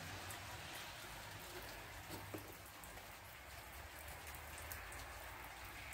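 Light rain falling: a faint, steady patter with scattered drop ticks.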